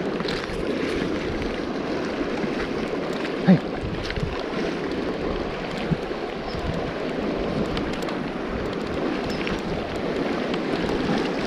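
Rushing river water running over a rocky riffle, a steady, even rush heard close up. A brief sharp sound stands out about three and a half seconds in.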